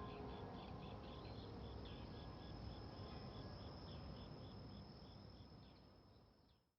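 Faint insects chirping in a steady rhythm of about three chirps a second, over a thin continuous high trill and low background hum, fading out near the end.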